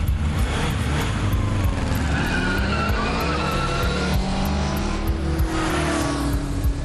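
Motorcycle engine running hard as the bike rides off, its pitch rising and falling as it revs.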